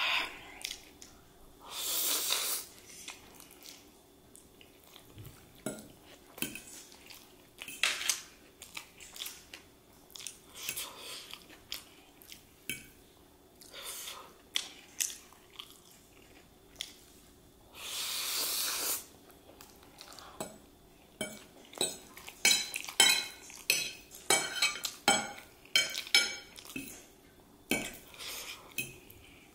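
Close-up eating of spicy chow mein: two long noodle slurps, about 2 s and 18 s in, with wet chewing between. From about 20 s a quick run of metal fork clinks and scrapes on the plate as noodles are twirled.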